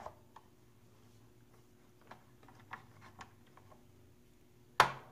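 Scattered light clicks from a Crayola Crayon Carver as its handle is pushed down, with one sharper, louder click near the end. The carving motor does not start, as if the carver has lost power.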